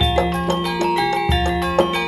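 Javanese gamelan playing: bronze metallophones strike a quick, steady run of ringing notes. Deep hanging-gong strokes sound at the start and again just past a second in.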